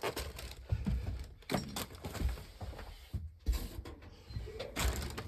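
Irregular knocks, clicks and clatter, as of objects being handled and set down, with a short pause about three seconds in.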